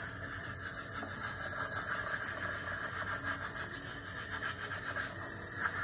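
Steady hiss of shower water running.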